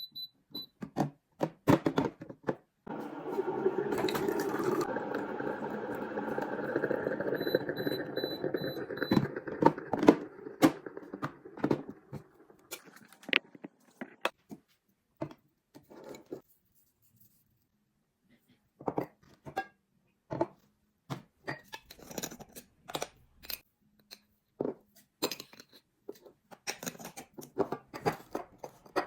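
Handling sounds from making a cup of instant coffee: scattered clicks and taps, with a steady rushing sound starting about three seconds in and fading out after about nine seconds.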